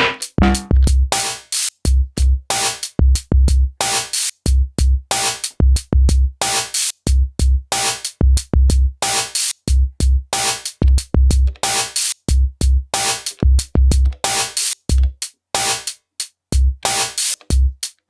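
Electronic drum pattern synthesized on an Elektron Digitone: deep kicks and short, snappy clicky hits and hi-hats in a steady repeating groove.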